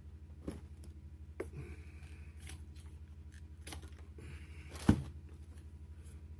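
Handling noises in a small room: a handful of scattered clicks and knocks, the loudest a sharp knock about five seconds in, over a steady low hum.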